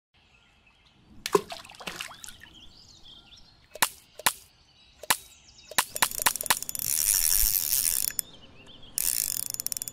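Sound effects of an animated logo intro: several sharp clicks and knocks, then two longer rattling, hissing stretches, one about six seconds in and one near the end.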